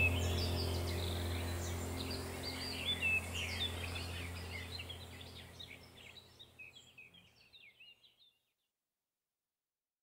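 Small birds chirping and trilling over a steady low drone. The whole sound fades out slowly to silence about eight seconds in, like a soundtrack being faded.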